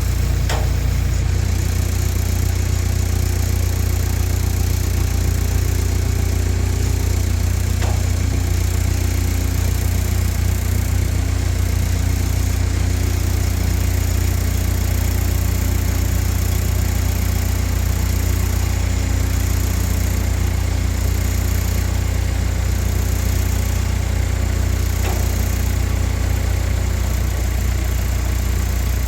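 An engine idling steadily, its sound mostly low-pitched, with no change in speed.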